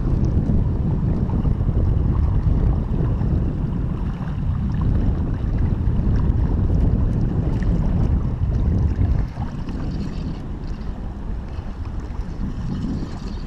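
Wind rumbling on the camera microphone over water rushing through a shallow riffle around a kayak. The rumble eases a little about nine seconds in.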